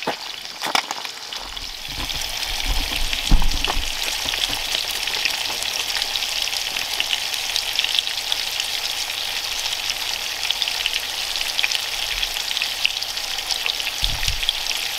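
Breaded trout sizzling in hot oil in a skillet, a steady crackling hiss. A few low knocks about two to four seconds in, as the pan or stove is handled.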